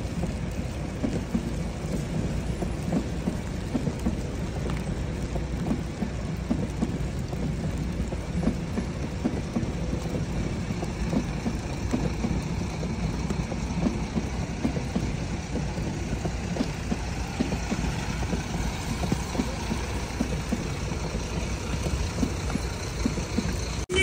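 Steady low rumble of storm wind buffeting the microphone, mixed with the running of a train on the railway below, with a faint rising whine in the last few seconds.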